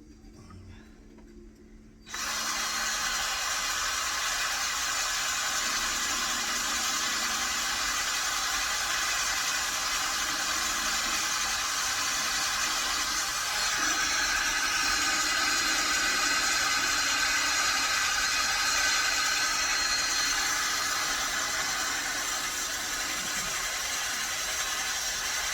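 Electric drill that starts suddenly about two seconds in and then runs steadily, boring through metal.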